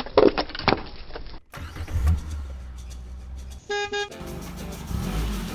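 Car horn sounding two short toots about four seconds in, over the low steady running of a car engine. The first second and a half holds a series of sharp cracks.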